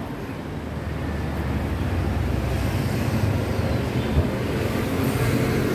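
Street traffic: a steady low hum of passing engines, swelling about two seconds in, with a short thump about four seconds in.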